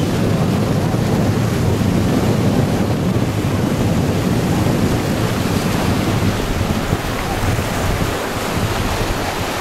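Wind buffeting the microphone over small waves breaking along a sandy beach, a steady rushing noise.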